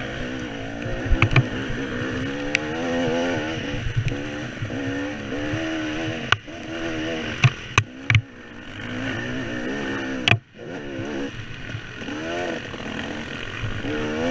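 KTM 300 two-stroke dirt bike engine revving up and down under load on a muddy, rutted hill climb, its pitch rising and falling with the throttle. Several sharp knocks and clatter from the bike over rough ground, and the throttle drops off sharply for a moment about ten seconds in.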